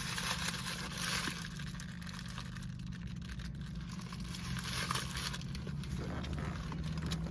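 Car running, a steady low rumble with hiss over it, with a few light clicks and rustles.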